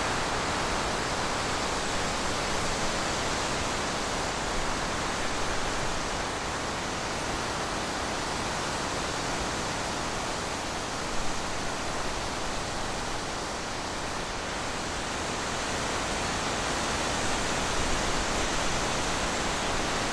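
Steady, even rushing hiss with no distinct animal sounds, and a brief tap about eleven seconds in.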